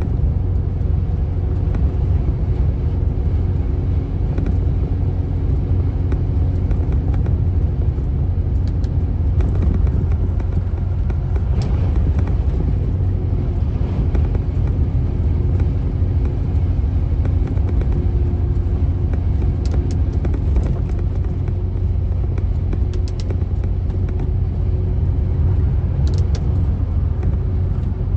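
Steady low rumble of a road vehicle driving at a constant speed along a highway: engine and tyre noise, with no change in pace.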